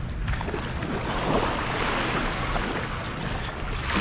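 Surf washing on the beach, with wind rumbling on the microphone.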